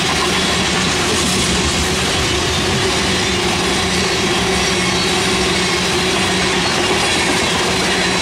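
Freight train tank cars rolling past at close range: a steady rumble of steel wheels on rail, with a few faint steady ringing tones over it.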